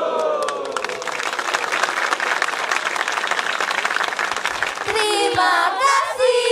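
A group of voices shouting in unison trails off at the start, then the audience applauds for several seconds. From about five seconds in, voices call out again in long held notes over the clapping.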